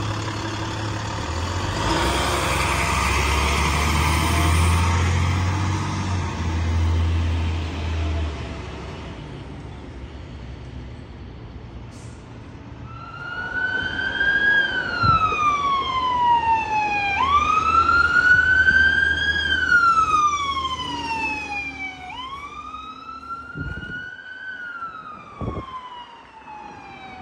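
An ambulance's engine rumbles as it pulls away. About halfway through, its siren starts a slow wail, rising and falling in pitch with roughly five seconds from one peak to the next.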